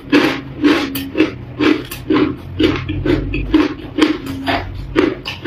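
Close-up chewing of a mouthful of crushed ice, a steady run of crunches about two to three a second.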